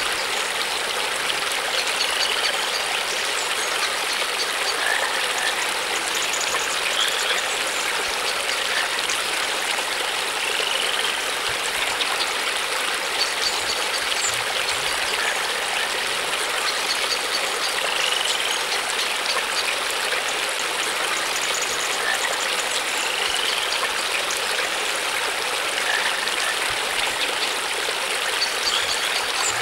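Steady running water, like a stream, with faint short rising chirps every few seconds.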